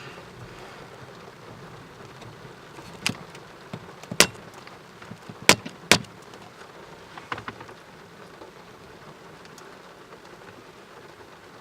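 Steady hiss of heavy rain in a thunderstorm, with a handful of sharp taps; the loudest come about four, five and a half and six seconds in.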